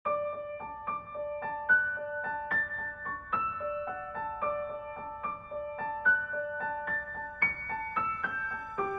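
Background music: a gentle piano melody of evenly paced notes.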